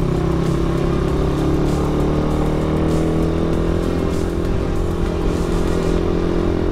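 Motorcycle engine running steadily while riding, its pitch holding nearly level with a slight drift.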